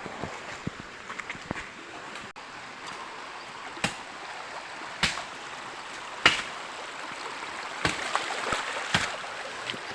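Running water of a stream or waterfall, a steady rush, with several sharp knocks or splashes, the loudest about six seconds in.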